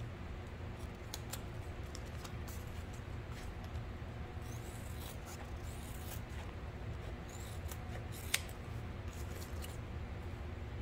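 Fabric scissors snipping, trimming the excess fabric and zipper tape from a zippered bag panel: a scattering of short cuts, with one sharper snip about eight seconds in.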